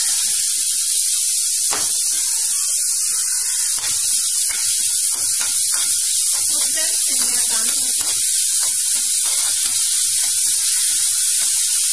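Chopped onions sizzling in hot oil in a steel kadai, a loud, steady hiss. A spoon stirs the onions, knocking and scraping against the pan.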